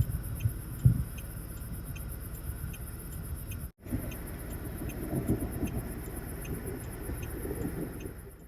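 A low rumble, as heard inside a car, with a faint, regular ticking about two or three times a second. The sound drops out briefly at a cut near the middle.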